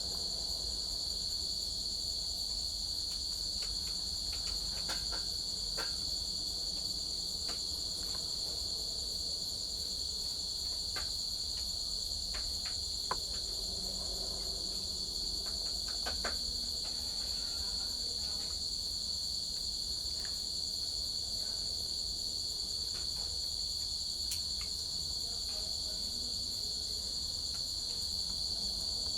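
Crickets chirping in a steady, unbroken high trill, with a few faint clicks scattered through.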